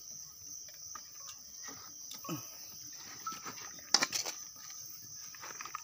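Crickets chirring steadily, with a single sharp knock about four seconds in.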